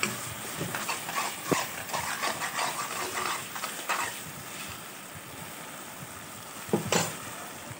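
Tomato and onion masala sizzling in a kadai while a spatula stirs it, scraping against the pan in quick strokes at first and then more slowly. There is one louder knock about seven seconds in.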